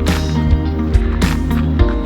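Background music with a steady beat: held chords over a bass line, with sharp drum hits about twice a second.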